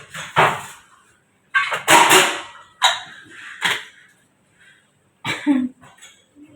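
A woman giving a series of forced coughs in short, separate bursts, one drawn out a little longer, as in an effective-coughing exercise done after a deep breath to bring up phlegm.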